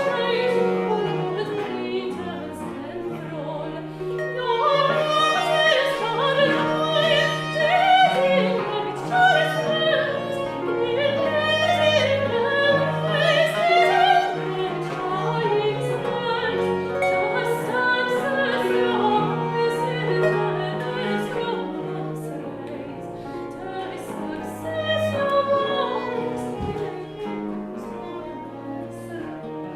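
Early-music ensemble of baroque flute, violin, viola da gamba, Celtic harp and theorbo playing a Scottish Jacobite song, with a woman's classical singing voice over steady bass notes. The music grows quieter toward the end.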